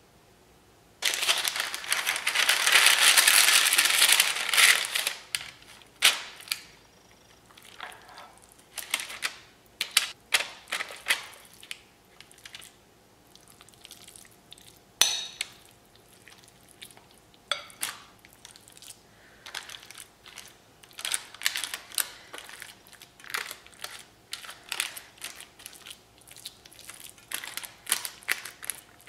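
Baking parchment crinkling loudly for about four seconds, then a metal spoon scraping and clinking against a glass bowl and a lined pan as a wet pasta and cottage cheese mixture is scooped out and spread, with one sharp knock about halfway.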